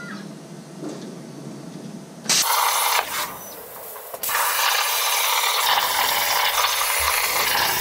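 CNC plasma cutter torch cutting steel sheet. A loud, harsh hiss of the arc starts suddenly about two seconds in, breaks off for about a second, then resumes and runs steadily as the torch cuts.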